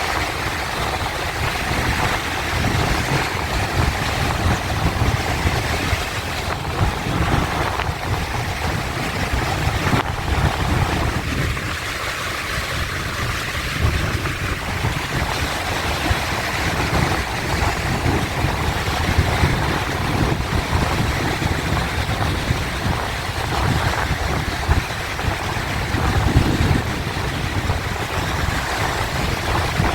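Sea waves washing and breaking in a continuous surf wash, with a low rumble that swells and eases.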